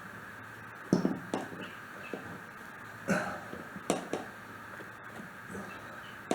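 Scattered sharp knocks and clicks, about six, of a tool working at the plastic hub cap on a riding lawnmower's wheel, over a steady background hiss.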